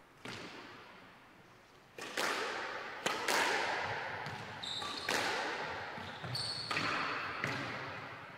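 A squash rally: the ball is struck by rackets and hits the court walls, about eight sharp hits, some in quick racket-then-wall pairs, each ringing on in the enclosed court. A few short high squeaks from shoes on the wooden floor come in the middle.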